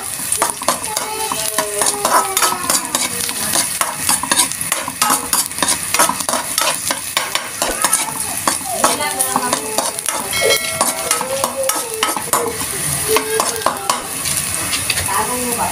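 A metal spatula scrapes and clicks against a metal wok, stirring sliced onions and garlic that sizzle steadily in hot oil.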